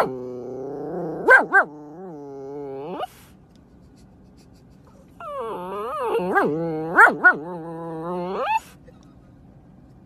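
A dog giving two long, drawn-out whining calls that waver up and down in pitch, each lasting about three seconds, with a pause of about two seconds between them.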